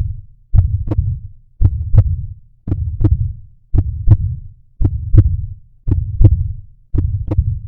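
Recorded human heartbeat at a slow, steady resting pace, about one beat a second, each beat a deep double thump (lub-dub).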